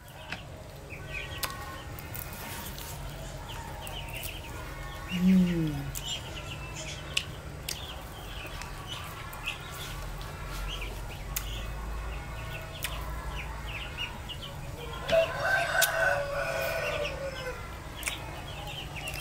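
Young poultry peeping and chickens clucking throughout, with a rooster crowing once, a drawn-out call from about fifteen seconds in that falls away at its end. A short low falling vocal sound comes about five seconds in.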